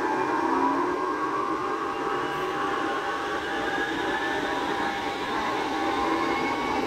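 Barcelona Metro series 4000 train heard from inside the car as it pulls out of a station and speeds up. Steady rolling rumble and hiss, with a motor whine that rises slightly in pitch.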